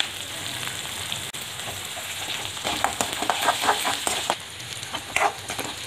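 Chopped onions sizzling in hot oil in an aluminium kadai, steady throughout. From about two and a half seconds in, a steel ladle scrapes and knocks against the pan in quick strokes as the onions are stirred, with another stroke near the end.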